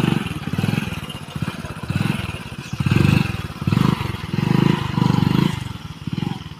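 Hero Splendor Plus motorcycle's single-cylinder four-stroke engine revving in about half a dozen surges, the throttle opened and eased again and again as the bike pulls through mud.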